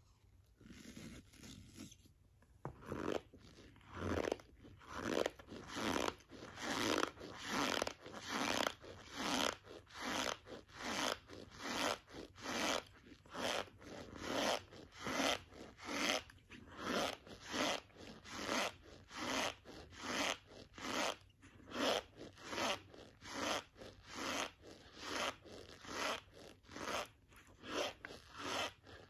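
Close-miked chewing of a mouthful of packed cornstarch, a squeaky crunch with each bite at about two bites a second, beginning in earnest a couple of seconds in.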